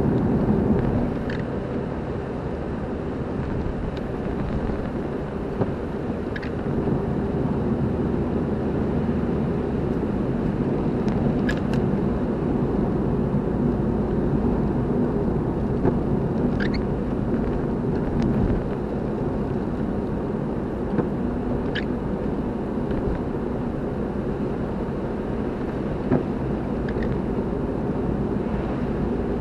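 A car driving along a road: steady engine and road noise, with a few faint, short high ticks here and there.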